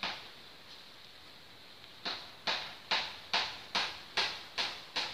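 A single sharp tick, then from about two seconds in an even run of sharp ticks, a little more than two a second.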